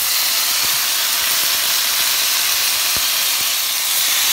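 Marinated pork and shrimp sizzling in a hot frying pan: a steady hiss with a couple of faint clicks.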